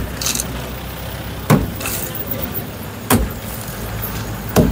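Sledgehammer blows against a crumbling masonry pillar, a heavy strike about every second and a half, knocking chunks and dust off the column.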